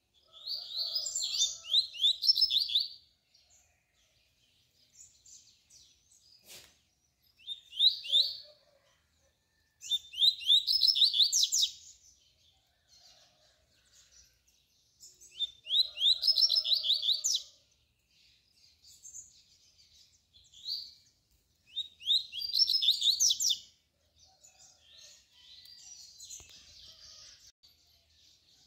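Male double-collared seedeater (coleiro) singing its tui-tui song: about five loud phrases, each a quick run of high, sweeping notes, with pauses of a few seconds between them and softer snatches of song in the gaps. It is a song meant as a model for young coleiros to learn from.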